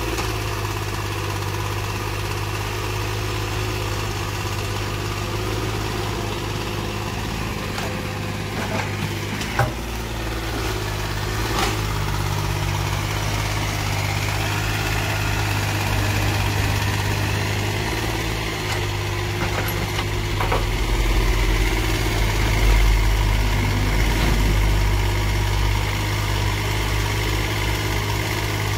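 Mini excavator's diesel engine running steadily as it digs. Two sharp knocks come about ten and twelve seconds in, and the low engine sound swells louder for a few seconds past the twenty-second mark.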